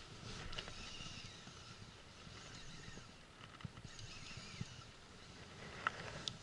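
Baitcasting reel being cranked to wind in a hooked fish, faint, with scattered soft ticks and two sharp clicks near the end, over a low hiss.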